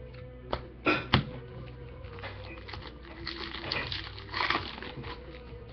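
Baseball trading cards being handled and laid on a pile: a few light clicks and taps in the first second or so, then soft rustling of cards.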